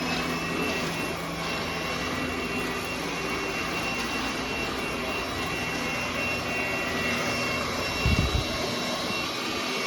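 NADALY cordless stick vacuum running steadily: a high motor whine over the rush of air, its pitch settled after spinning up. There is a brief low thump about eight seconds in.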